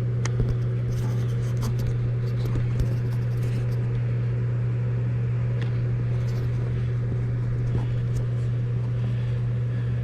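Automotive smoke machine running a smoke leak test on an engine intake, with a steady, even hum and a few light clicks. The smoke is showing up as leaks under the TPI intake runners.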